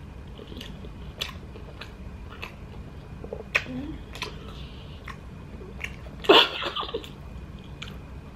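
Close-miked chewing of an Italian sub sandwich: moist mouth clicks and smacks scattered throughout, with a louder burst about six seconds in.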